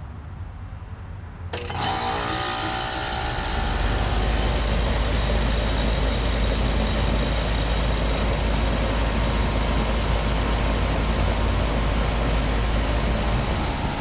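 2004 Goodman CKL 5-ton central air conditioner with a Copeland scroll compressor starting up: it kicks on suddenly about a second and a half in, a deeper hum builds in about two seconds later, and the unit then runs steadily.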